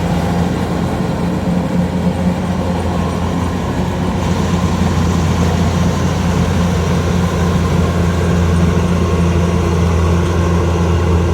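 Kubota 105X combine harvester running steadily, its diesel engine giving a constant low drone over machinery noise.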